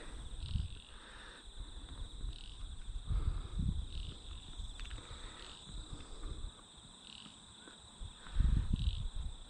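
Crickets chirping in a steady high trill, with frogs croaking every second or so. Low rumbles come and go, loudest about eight and a half seconds in.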